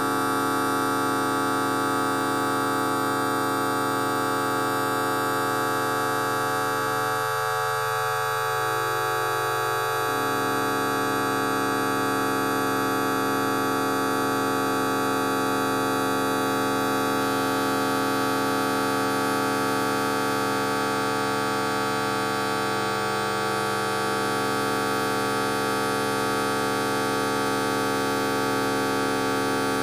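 A fart sound effect time-stretched to an hour, heard as a steady drone of many held tones at an even level.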